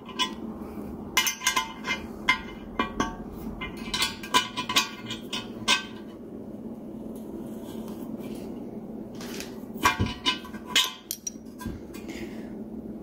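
Irregular metallic clicks and clinks from a ratcheting box-end wrench turning a large M20×1.5 tap, cutting new drain-plug threads into an aluminium oil pan. The clicking is dense at first, pauses for a few seconds, and picks up again about ten seconds in.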